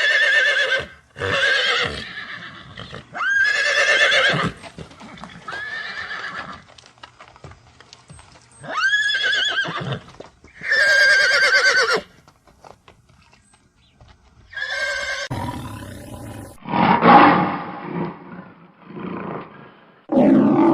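Horse whinnying: a series of about six high, quavering neighs, each about a second long, followed after a pause by several lower, rougher calls.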